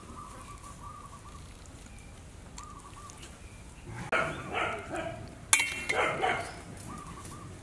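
An animal calling in two short, loud bouts of several calls each, about four and five and a half seconds in.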